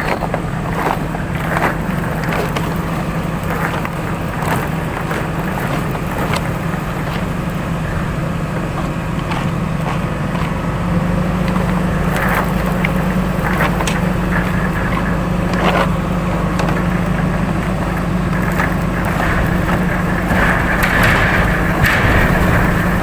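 An engine running steadily, with scattered knocks and clatter throughout.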